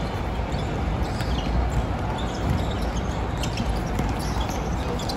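Basketball game court sounds: a ball bouncing on the floor over a steady background din, with scattered short squeaks and knocks.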